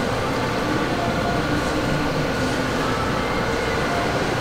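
Steady background hum and rush of shopping-mall ambience, mostly air-handling noise with a low rumble.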